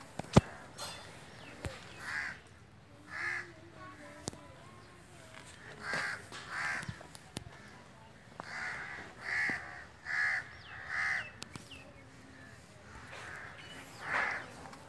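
Crows cawing, about nine short calls coming in ones, twos and threes. A sharp click just after the start is the loudest single sound.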